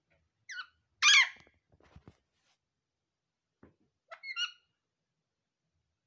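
Alexandrine parakeets calling: a short call about half a second in, a loud harsh squawk about a second in, and another short call just after four seconds.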